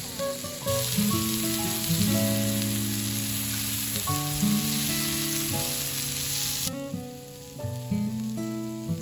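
Food sizzling as it fries in a pan, a steady hiss that starts suddenly about a second in and cuts off abruptly a couple of seconds before the end. Background music with held notes plays under it throughout.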